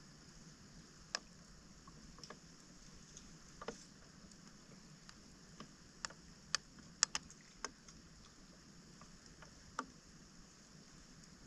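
Faint, irregular drips and splashes of water: about a dozen sharp ticks scattered unevenly, bunched near the middle, over a steady high hiss.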